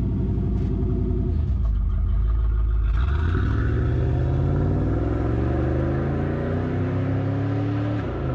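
The 1986 Chevrolet Camaro IROC-Z's 305 cubic-inch tuned-port-injected V8 pulling away. Its exhaust note runs low and steady for about three seconds, then rises steadily in pitch as the car accelerates, and drops suddenly near the end.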